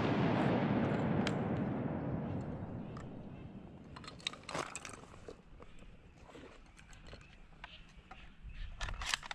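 The rolling echo of a shotgun blast dies away over the first three seconds or so, followed by a few scattered short clicks and knocks.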